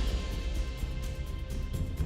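Background music with a steady beat and a heavy bass.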